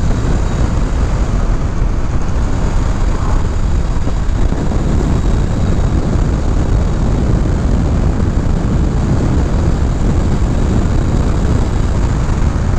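A Honda CBR500R's parallel-twin engine running at road speed, mostly buried under a heavy rush of wind across the camera microphone. It stays steady throughout, with no clear shifts or revs.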